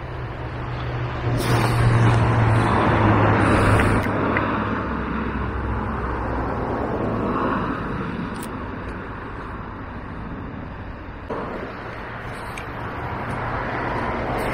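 Steady road traffic noise with vehicles passing, swelling and easing, with a low engine hum underneath. There is a faint click about eight seconds in.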